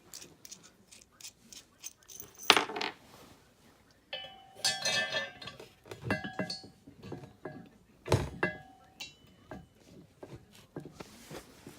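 Steel hardware clinking and clanking as a caster wheel, its bushings and bolts are fitted into a steel engine stand frame: scattered light taps, a sharp knock a couple of seconds in, a ringing metal clatter around the middle, and another knock later on.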